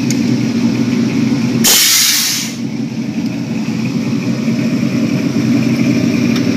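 A 1971 Chevrolet donk's engine running steadily as the car rolls slowly. About two seconds in, a loud hiss lasts just under a second over it.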